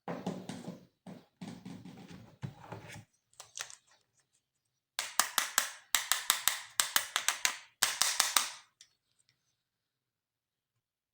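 Toy packaging being handled and opened: rustling and crinkling for a few seconds, then after a pause a fast run of sharp clicks and crackles in quick clusters.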